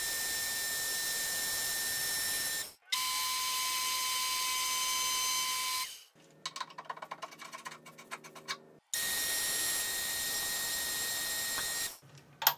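Metal lathe turning down the outside of a thick-wall steel tube, taking a light cut of about fifteen thousandths: a steady hiss with high whining tones, heard in three stretches of about three seconds that start and stop abruptly. In the middle comes a quieter spell of light clicks and rattles while the chuck stands still.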